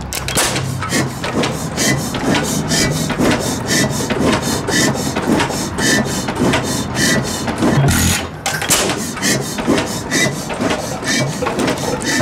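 1916 Galloway hit-and-miss gas engine coasting on its flywheels, its valve gear and igniter clicking in an even rhythm several times a second, with one heavier beat about eight seconds in. The engine fires only when it slows enough for the governor to let it take a charge.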